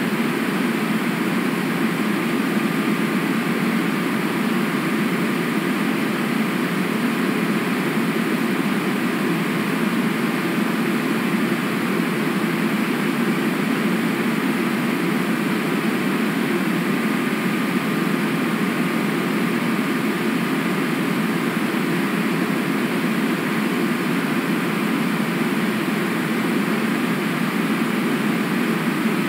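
Steady, even rushing noise on an outdoor webcam microphone, with no splashes or other separate sounds standing out.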